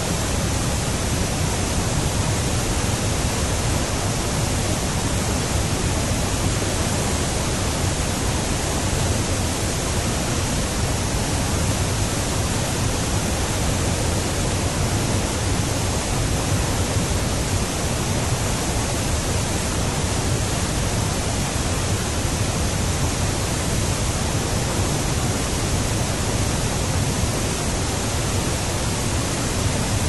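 Steady, unchanging roar of a large waterfall: a constant rush of falling water, even from low to high pitches, dubbed in as a waterfall recording in place of the original sound.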